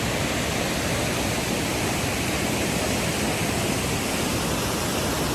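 Waterfall running high with rainy-season water, a steady even rush of falling water.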